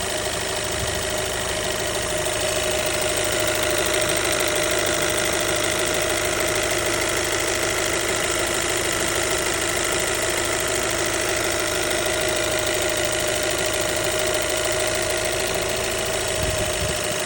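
Alfa Romeo 1.8 TBi turbocharged direct-injection four-cylinder idling steadily, with a fast, even ticking from its high-pressure fuel pump.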